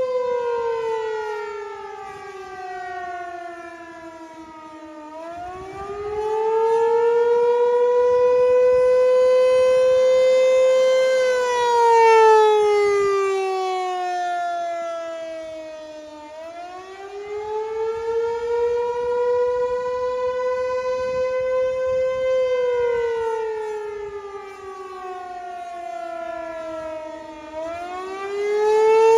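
American Signal T-128 outdoor warning siren sounding a wail on a scheduled test. The pitch climbs, holds high for a few seconds, then slides slowly down, about every eleven seconds. The sound grows louder and fainter in turn.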